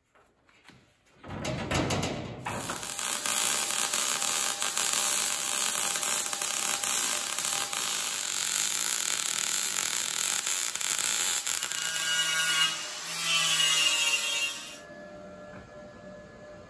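MIG welder arcing on new steel floor and sill panels, a continuous sizzling crackle that starts about two seconds in and stops near the end.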